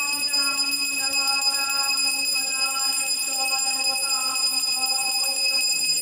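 A steady, unbroken high-pitched ringing tone with a ladder of overtones, over a voice chanting in held, shifting notes.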